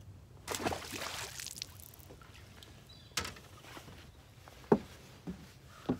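A second-long rush of splashy noise about half a second in, then a few hard knocks of footsteps on a boat's deck as a man walks across it.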